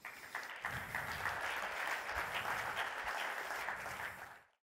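Audience applauding, a steady dense clapping that fades and cuts off sharply near the end.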